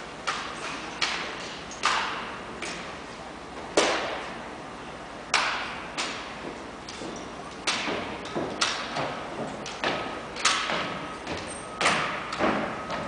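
Sharp slaps and knocks of hands catching and striking a drill rifle during exhibition rifle spinning, irregularly spaced about a second apart, each echoing in a gymnasium.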